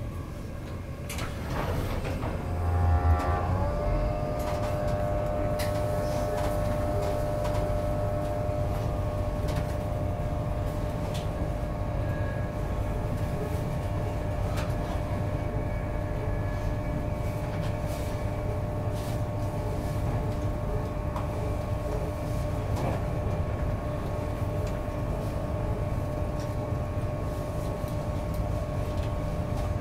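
Interior running noise of an Intercity 225 passenger coach at speed: a steady rumble of wheels on the track. About two to three seconds in a low thump comes with a whine that slides down in pitch, and the whine then holds steady.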